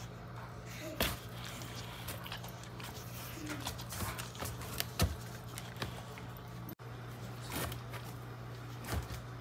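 A boxer dog's muzzle knocking and bumping at a cardboard box as it goes for cheese sticks poking through holes in the top: scattered short thumps a second or two apart, over a steady low hum.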